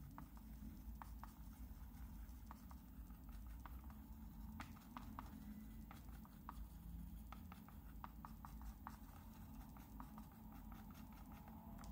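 Faint, irregular ticks and scrapes of a wooden stick stirring paint on a paper-covered plastic palette, over a low steady hum.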